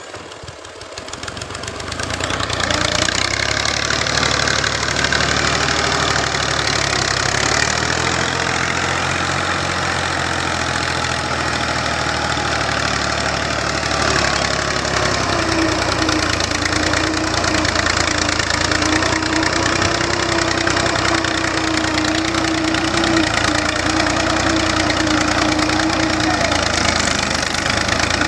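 Al-Ghazi tractor's three-cylinder diesel engine running under load while it pulls a tine cultivator through the soil. It grows louder over the first couple of seconds and then runs steadily.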